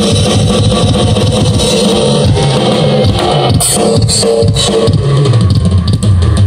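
Live rock band playing loud: electric guitar and bass through amplifiers over a drum kit.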